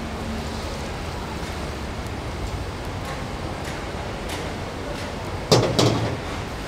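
Steady rush of a gas wok burner while oil drains from one carbon-steel wok into another. About five and a half seconds in, a loud burst of metal clanking lasts about half a second as the wok and ladle knock together.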